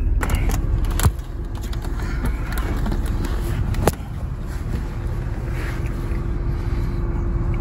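Steady low rumble with a faint hum, and two sharp knocks about one and four seconds in, as someone moves about inside a minivan.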